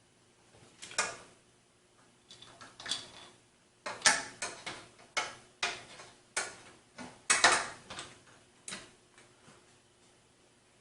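Screwdriver and screws clicking and knocking against a PC case while a case fan is screwed into place: a string of irregular sharp clicks, thickest in the middle.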